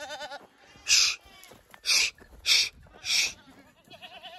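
Goats bleating faintly with a wavering call at the start and again near the end. In between come four short, loud hissing bursts.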